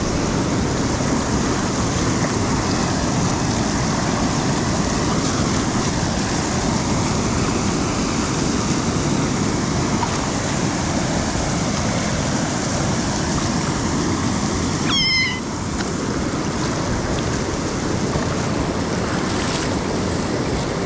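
Steady rush of river water pouring over rapids. About fifteen seconds in, one short, high-pitched squeak from an otter.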